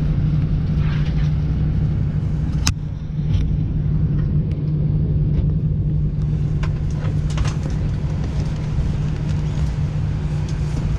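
Steady low hum inside a parked Airbus A320-200 cabin, with a few sharp clicks and knocks, the clearest under three seconds in.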